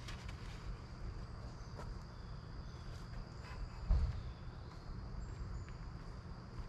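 An insect keeps up a steady, high-pitched trill over a low, steady rumble. One dull thump comes about four seconds in.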